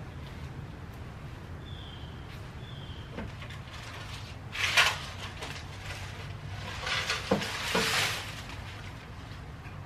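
Dry leaves rustling and scraping as a garden rake pulls them into a dustpan on pavement, in two bursts about four and a half and seven seconds in, over a low steady hum. A bird chirps twice around two to three seconds in.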